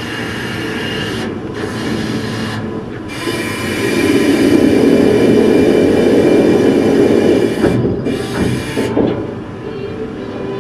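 Wind buffeting the microphone on a ferry's open bow deck, over the steady rumble of the ship under way. It comes in several gusts that start and stop abruptly, with the longest and loudest in the middle.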